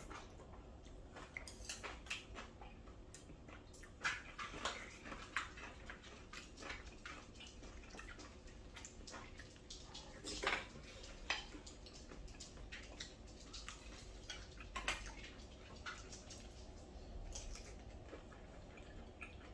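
Spoons clinking and scraping on plates as curry rice is mixed and eaten, in scattered short clicks with a few louder knocks.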